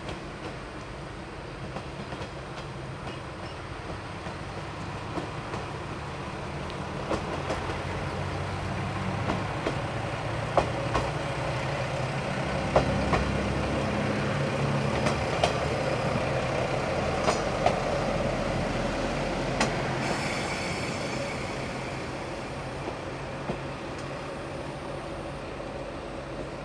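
Sanriku Railway 36-series single-car diesel railcar passing by. Its engine grows louder, peaks about halfway through and fades again, with sharp clacks of the wheels over the rail joints as it goes past.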